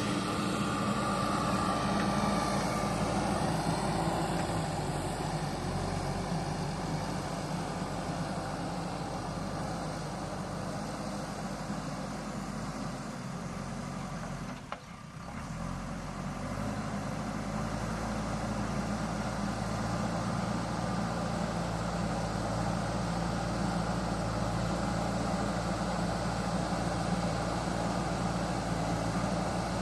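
JCB backhoe loader's diesel engine running steadily, with a brief dip in level about halfway through.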